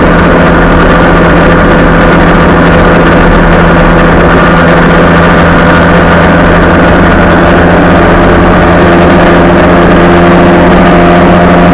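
Motorcycle engine running at a steady motorway cruise, one unchanging note, with heavy wind and road rush over the microphone. The sound is very loud, close to the engine.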